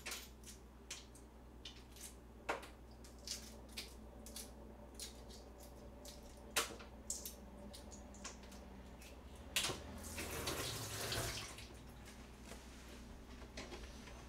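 Scattered light clicks and taps of kitchen handling, with a water tap running briefly about ten seconds in.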